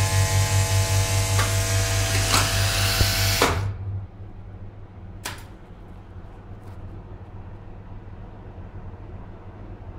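Hydraulic elevator power unit running: the pump motor hums and throbs about four times a second, with a steady whine and oil hissing through the valve block. It shuts off suddenly about three and a half seconds in, leaving a low hum and a sharp click about five seconds in, with a fainter click a little later.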